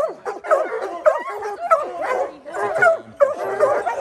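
A pack of hunting hounds barking and baying together, many voices overlapping without a break. This is the chorus of hounds that have treed a mountain lion.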